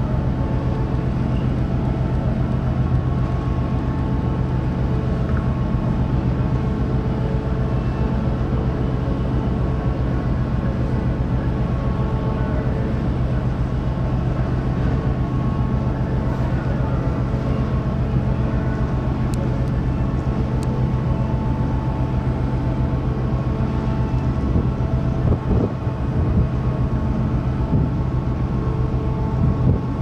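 Steady drone of a large car ferry's diesel engines and shipboard machinery, a constant low hum with several steady tones over it. Wind buffets the microphone a few times near the end.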